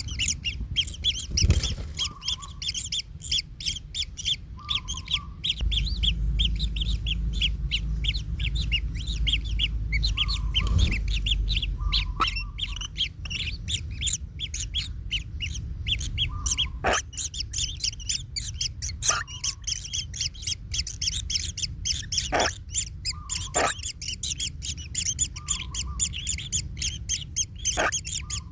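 Kingfisher nestlings calling without pause, a dense stream of rapid high-pitched chirps, with a shorter, lower call repeating every couple of seconds and a few sharp clicks.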